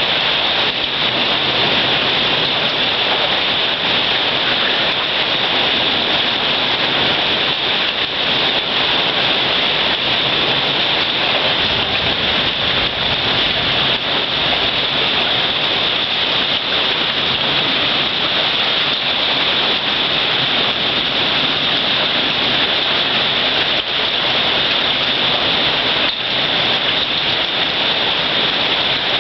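Hailstorm: hail and heavy rain pelting down steadily, a dense unbroken hiss.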